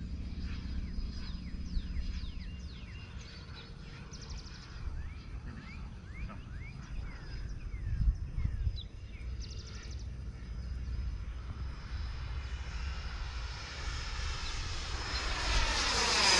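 Electric ducted-fan model F-16 jet flying past, its rushing whine swelling over the last few seconds and loudest at the end as it passes low. Earlier, short high chirps and a low wind rumble on the microphone.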